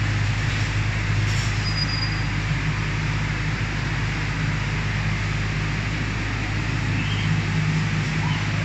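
Electric inflatable blower running steadily, a continuous low hum with rushing air, keeping an inflatable slide inflated.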